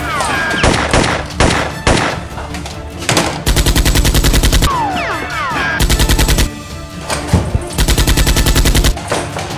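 Machine-gun fire sound effect: a few single shots in the first two seconds, then three rapid bursts of about a second each.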